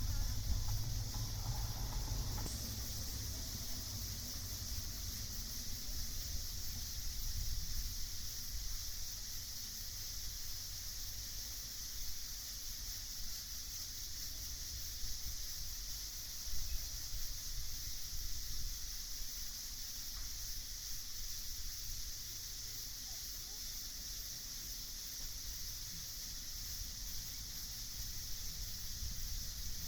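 Steady chorus of night insects, a continuous high-pitched trilling, over a low rumble.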